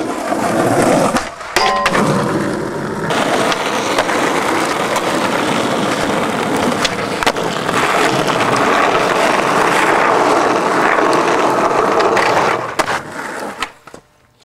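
Skateboard wheels rolling on rough asphalt, a steady gritty roar, broken by a few sharp wooden clacks of the board popping and landing. The sound drops almost to silence just before the end.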